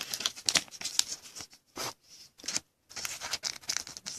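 Trading cards and plastic card holders being handled: light scrapes, rustles and small clicks in irregular bursts.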